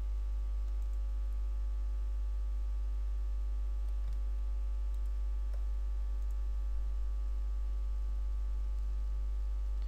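Steady low electrical hum from the recording setup, with a few faint computer mouse clicks as items are selected on screen.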